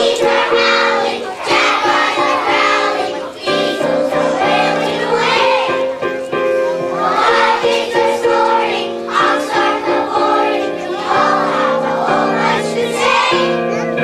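A group of young children singing a song together in chorus over instrumental accompaniment.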